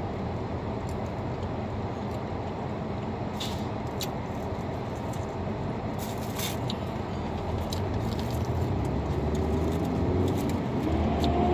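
Steady low rumble of a car heard from inside the cabin, growing louder over the last few seconds, with a few faint clicks.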